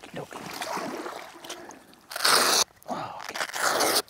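Shallow pond water splashing and sloshing around a man lying in it wearing body armor. Past the middle come two loud rushes of noise, a short one and then a longer one, each starting and stopping abruptly.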